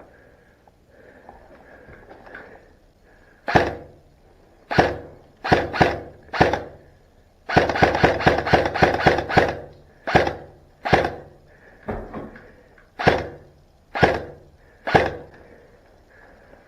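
Airsoft electric gun shooting: single shots, then a rapid string of about ten in two seconds near the middle, then more single shots.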